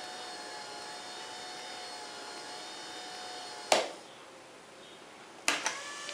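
Homemade lathe's motor whining steadily. A sharp clack about three and a half seconds in, and the whine stops; two more clacks near the end, and it starts again at a different pitch.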